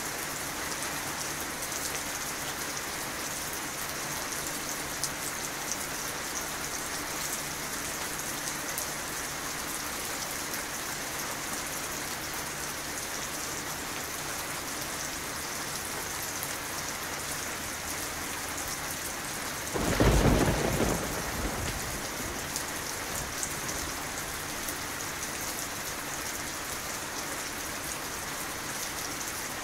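Steady rain falling, with a sudden loud clap of thunder about two-thirds of the way through that rumbles and fades over a couple of seconds.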